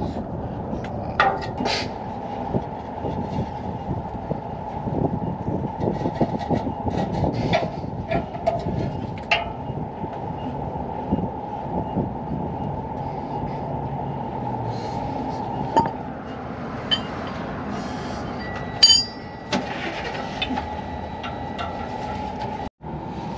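A steady low rumble with scattered clicks and knocks as a hand and arm work among metal parts under a truck, reaching for an oxygen-sensor plug.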